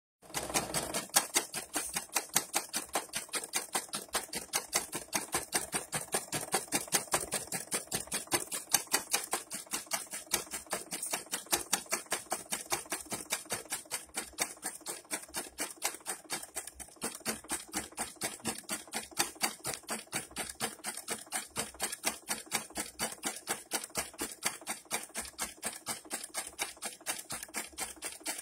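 Brother PE-770 embroidery machine stitching, a rapid, even clatter of needle strokes that starts just after the beginning and keeps a steady rhythm. The machine is working again after its mouse-chewed wiring and screen ribbon cable were replaced.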